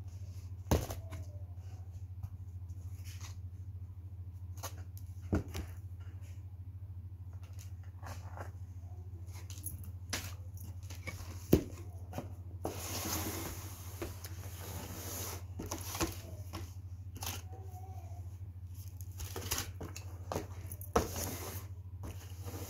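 Food packaging handled at a table: scattered taps and knocks, with two longer stretches of crinkling or tearing packaging about halfway through and near the end, over a steady low hum.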